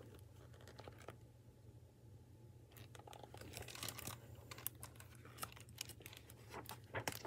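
Faint rustling and crinkling of a plastic-jacketed picture book being handled and its pages moved: irregular small clicks and crackles, mostly from about three seconds in, over a low steady hum.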